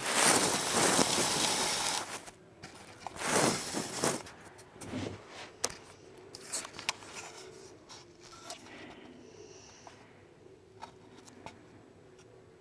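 Rustling and scraping of the camera moving against carpet and under a bed: a loud rush in the first two seconds and again about three seconds in, then scattered clicks and soft scrapes.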